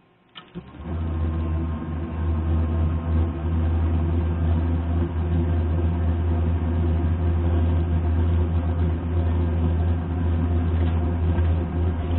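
Dometic DFMD30111 RV furnace starting up: a click, then its blower motor comes up to speed and runs with a steady hum. This is the furnace firing with a newly replaced sail switch, which was the fault.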